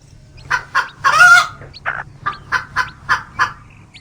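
Chicken sound effect: a hen clucking, with two short clucks, a longer squawk about a second in, then a run of about seven quick clucks.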